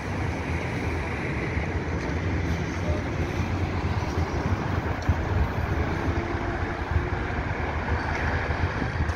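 Steady traffic noise from a busy multi-lane city avenue: many cars' engines and tyres blending into a continuous rumble.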